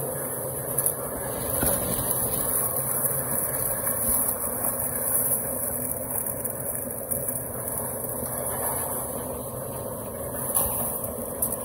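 A small engine running steadily, with shovels scraping through wet concrete.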